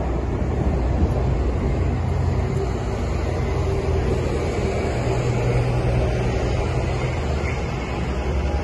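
City street traffic: a steady low rumble of vehicle engines, with red double-decker buses on the road close by.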